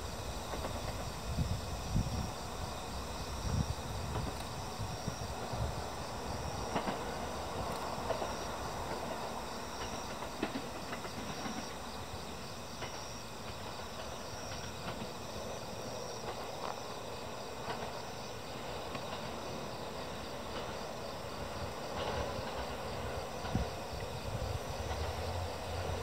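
Insects chirping in a regular pulse over quiet open-air ambience, with the low rumble of an approaching KiHa 40 diesel railcar growing louder near the end.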